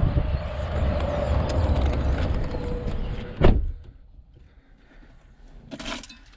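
Steady outdoor rumble and hiss, then a GMC's driver's door shut with one sharp slam about three and a half seconds in, after which the sound drops to the hush of the closed cab. A brief rustle follows near the end.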